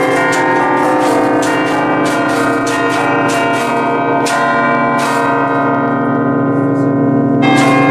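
A set of eight bronze church bells tuned to B-flat, cast by Luigi and Giorgio Ottolina in 1949, rung in a festive pattern. The bells are struck in quick succession, several strikes a second, and their ringing tones overlap. The strikes thin out for about two seconds near the end, then a new quick run begins.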